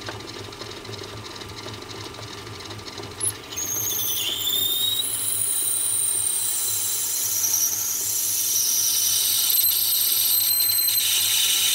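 Metal lathe running while a twist drill in the tailstock chuck bores into a spinning brass piece. From about three and a half seconds in, the drilling gives a loud, high-pitched squeal of several slightly gliding tones over the lathe's steady hum.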